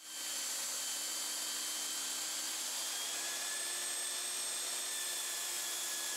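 Makita portable belt sander running steadily in a stand: an even motor whine over the hiss of the moving belt.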